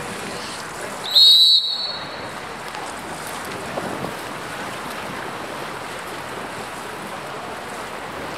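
Water polo referee's whistle: one short, loud, high blast about a second in, over a steady hiss of wind and splashing water.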